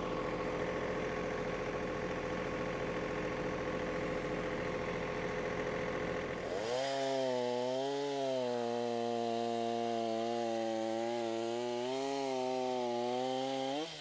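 An engine idling steadily, then about seven seconds in a chainsaw revs up and cuts through a felled tree trunk, its pitch wavering as the bar loads and unloads in the wood.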